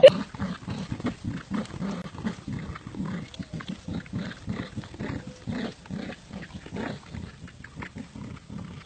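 Dogs growling in play during a tug-of-war over a toy: a continuous run of rough, low pulses, several a second.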